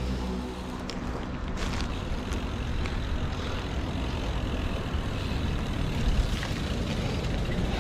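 Wind rushing and buffeting on the microphone, with the tyres of a mountain bike rolling over rough concrete, while the bike is ridden along.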